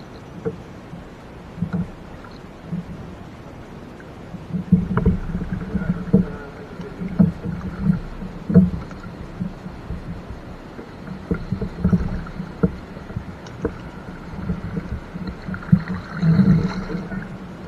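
Kayak being paddled with a double-bladed paddle: strokes through the water with irregular knocks and thumps on the kayak, coming more often and louder from about four seconds in.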